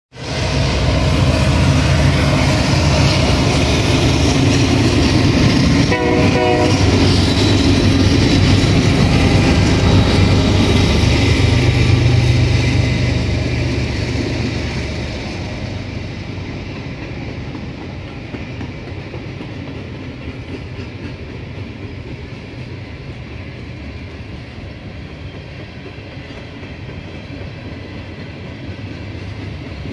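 Diesel freight locomotives passing close, their engines loud and rumbling for the first half, with a brief horn note about six seconds in. After about fifteen seconds the engine sound drops away and the freight cars roll by with steady wheel-on-rail noise.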